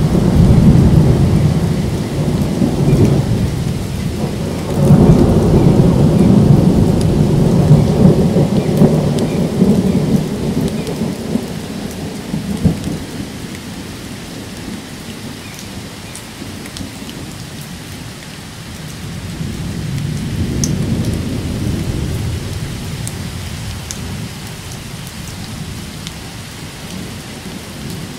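Thunder rolling in long low rumbles over steady rain. The rumble is loud at the start, swells again from about five to ten seconds and dies away, then comes back more softly around twenty seconds in.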